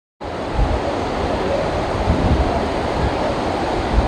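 Floodwater rushing over a dam's spillway gates as the dam overflows, a loud, steady rush that cuts in abruptly at the start. Wind buffets the microphone with irregular low thumps.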